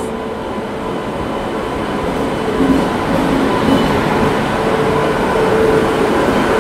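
Indian Railways WAP-7 electric locomotive and its coaches rolling slowly past along a platform: a steady rumble of wheels and machinery that builds gradually as the engine comes alongside. A held droning hum rises over it now and then, most strongly near the end.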